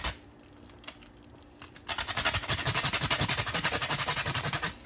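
Hand grater rasping in fast, even strokes as bergamot peel is grated over the pot. A pause of about two seconds with one click near the first second, then the rapid strokes start again.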